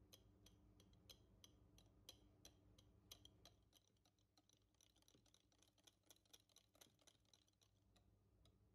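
Faint clicking of a wire whisk against a glass bowl as it beats flour into a thick cheesecake batter: irregular ticks, a few a second, coming faster around six to seven seconds in.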